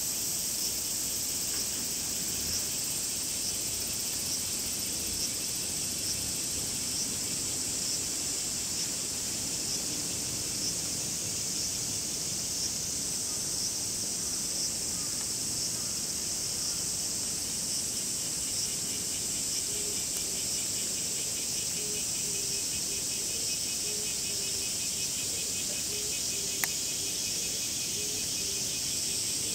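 Cicadas singing in a steady high buzz with a faint regular pulse. From about two-thirds of the way in, a low repeated note sounds beneath them, and a single sharp click comes near the end.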